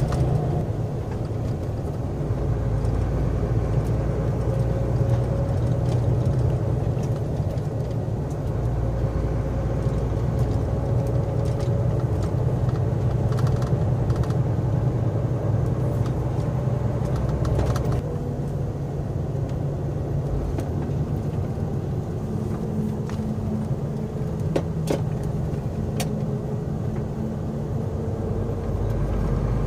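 Steady engine and road drone inside the cab of a heavy vehicle on the move, its low engine note shifting about twenty seconds in, with a few brief clicks and rattles.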